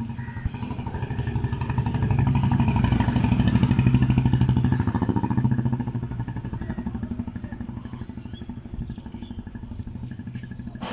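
Motorcycle engine passing close by, growing louder over the first few seconds and fading away after about five seconds.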